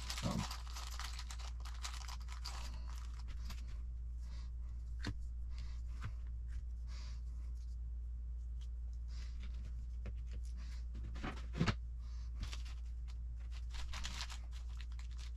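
Small clear plastic parts bag crinkling as it is handled, with light clicks of small plastic and metal kit parts inside it, and one louder click about three quarters of the way through. A low steady hum runs underneath.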